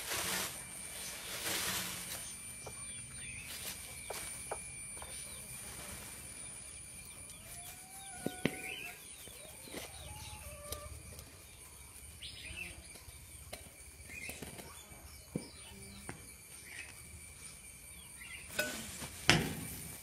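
Courtship display of a pheasant in an aviary. Short rustling bursts come at the start, and a few short chirps come in the middle over a steady, thin, high-pitched background tone. Near the end, two sharp, loud wing flaps from the displaying male are the loudest sounds.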